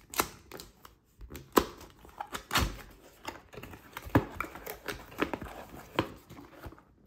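Cardboard product box being opened by hand: an irregular string of sharp clicks, taps and scrapes as the tuck flaps are pulled free and the inner tray is slid out. The loudest snaps come about one and a half and four seconds in.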